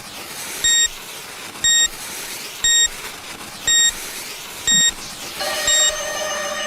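Electronic timer beeping once a second, six short high beeps, over a steady background hiss. About five and a half seconds in, a held sound of several steady tones joins in.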